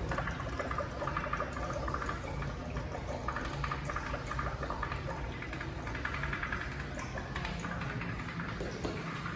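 American Standard Washbrook urinal finishing its flush, water running and trickling through the bowl and down the drain.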